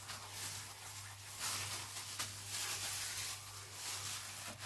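Steel wool scourer rubbing over a greasy kitchen wall, scrubbing off built-up grease: a soft hiss that swells and fades with each stroke, over a steady low hum.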